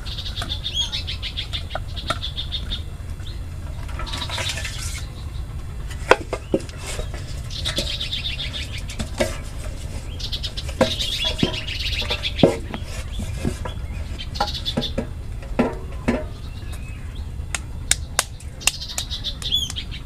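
Birds chirping in rapid trills every few seconds, over scattered sharp knocks, clicks and splashes from hands working in a metal basin of water, with a steady low rumble underneath.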